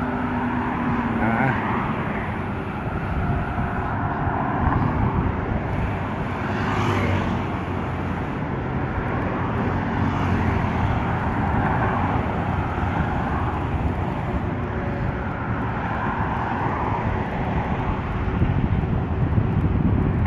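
Steady rushing wind and low rumble on the microphone of a rider cycling along a paved bike lane.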